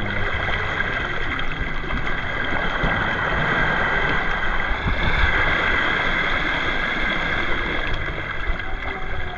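Shallow seawater washing and sloshing over rocks and around a person wading, a steady rushing wash with a few faint, steady high tones above it.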